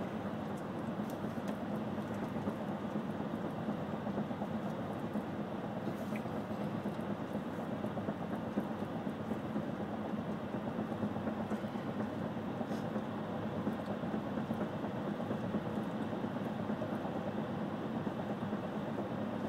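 Steady road and engine noise inside a moving car's cabin: a constant drone with a low hum running under it.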